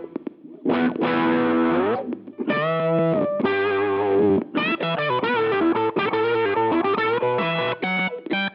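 Electric guitar played through the Jed's Peds Brain Bleach fuzz pedal, a heavily distorted riff. A held note bends down about two seconds in, then chords follow, and the riff breaks into short choppy stabs near the end.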